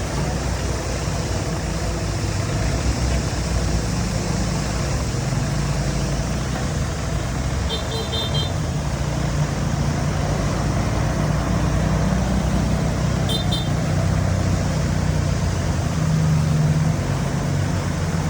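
Diesel engine of heavy earthmoving machinery running steadily with a low drone. Two brief high chirps sound, about 8 and 13 seconds in.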